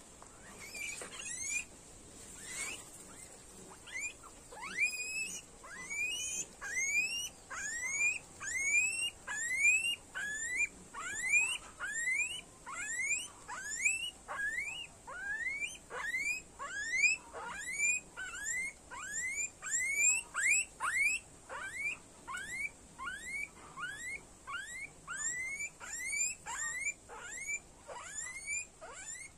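Guinea pig squealing over and over while it is held down and injected under the skin with a syringe, distress calls. Each call is a short rising whistle, and they come about two a second after a sparser start.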